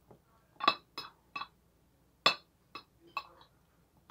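Metal fork clinking against a plate as food is picked up, six or seven sharp ringing clinks at an uneven pace, the loudest about a second in and past the middle.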